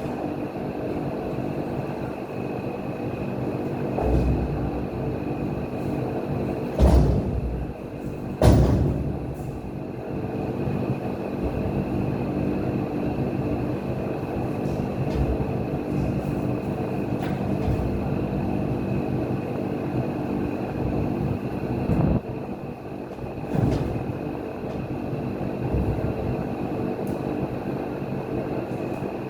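Steady mechanical running noise with an even low hum, broken by a few loud knocks, two close together about seven and eight seconds in and two more past the twenty-second mark.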